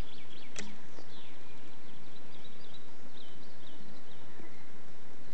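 Small birds chirping in short calls over a steady hiss, with one sharp click about half a second in.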